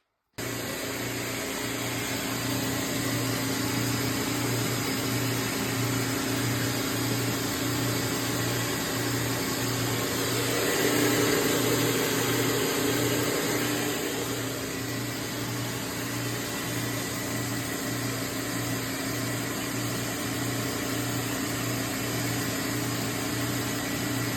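Duct-cleaning equipment running: a steady rushing of air with a low hum that pulses about twice a second. It starts abruptly and swells briefly in the middle.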